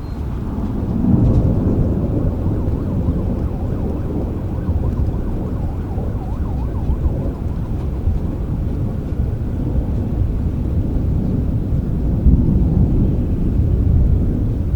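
Steady rain with low rolling thunder, the rumble swelling about a second in and again near the end.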